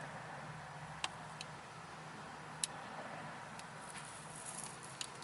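A few sharp, faint clicks and taps of small parts being handled while working on a car's push-start button and its housing, over a low steady hum.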